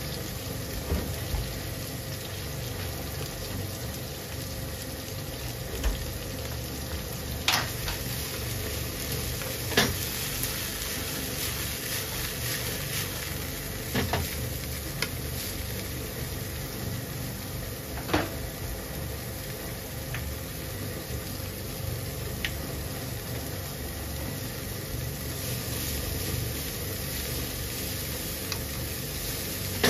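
Bean sprouts sizzling in oil in a nonstick frying pan as they are stir-fried and turned with tongs. A handful of sharp clicks come from the tongs striking the pan.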